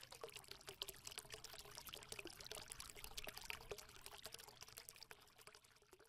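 Faint trickling, pouring water with many small splashes and droplets, thinning out near the end.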